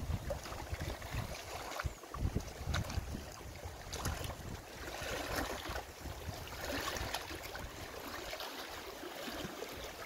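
Small wind-driven lake waves lapping and splashing against shoreline rocks, with swells of splashing a few seconds in, under wind rumbling on the microphone.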